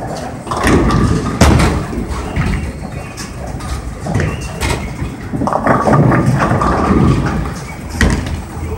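Bowling alley din: bowling balls rolling down the lanes and pins crashing, with a sharp crash about a second and a half in and another knock near the end.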